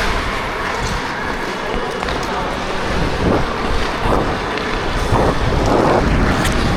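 Wind noise on a body-worn action camera's microphone while skating during an ice hockey game, with a few sharp clicks and faint voices on the rink.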